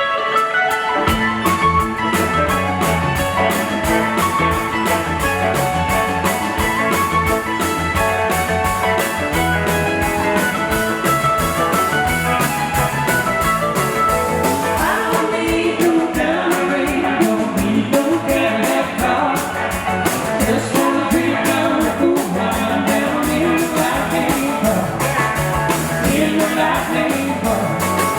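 Live blues song played on guitar with a steady beat; low notes come in about a second in and a singing voice joins about halfway through.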